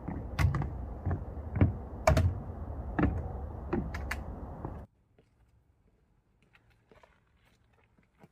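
Irregular clicks and knocks of hiking footsteps, with trekking poles striking a rocky trail, over a steady hiss. The sound cuts off abruptly about five seconds in, leaving near silence with a few faint ticks.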